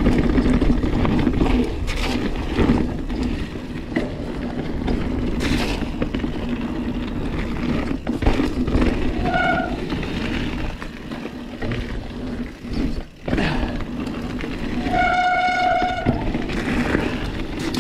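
Santa Cruz Hightower 29er mountain bike descending a rough dirt and rock trail, with continuous tyre and trail noise and rattling from the bike. Twice, once about nine seconds in and again for over a second near the end, a short steady whine with one pitch rises above it.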